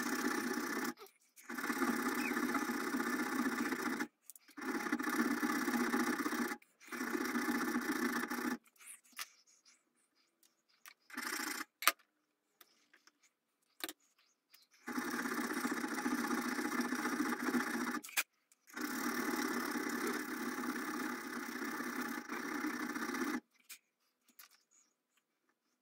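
A metalworking tool cutting the steel rifle barrel for the front-sight dovetail notch: a steady rasping in runs of two to three seconds with short breaks. In the middle it stops for several seconds, leaving a few light clicks and one sharp click, then two more runs follow.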